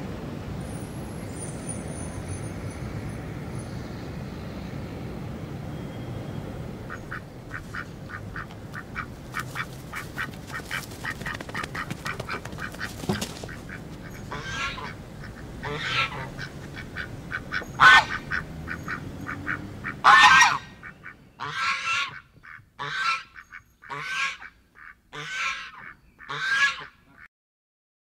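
Flock of domestic geese gabbling and honking. It starts as quick chatter a few seconds in and turns into a run of loud single honks in the second half. A steady background noise fills the first several seconds before the geese come in.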